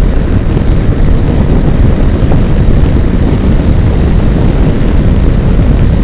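Heavy wind rush on the microphone over the drone of a Yamaha NMAX 155 scooter's single-cylinder engine running near top speed, about 120 km/h. The rumble is loud and steady and covers the engine.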